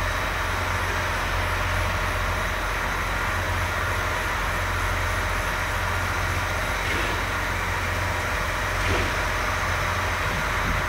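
Tractor engines running in a steady, deep drone. A faint, even, high ticking sits over the drone for the first several seconds.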